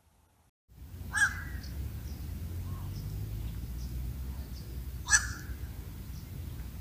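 Black-crowned night heron giving two single harsh, crow-like "quok" calls about four seconds apart, over a low steady rumble.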